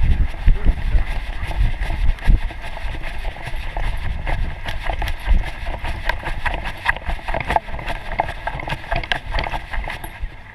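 Irregular knocks, thumps and rustling from a chest-mounted GoPro jostled by a running dog's strides, with wind buffeting the microphone.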